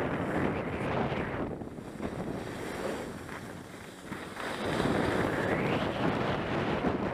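Wind rushing over an action camera's microphone, mixed with skis hissing and scraping over groomed snow while the skier turns downhill. The rush eases about a second and a half in and swells again past the middle.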